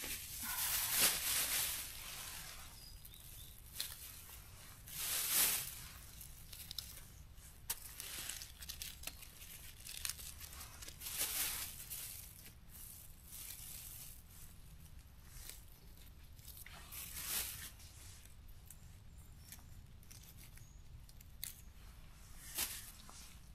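Rustling of dry leaves and forest litter as mushrooms are picked by hand, in short bursts every five or six seconds with small ticks and snaps between.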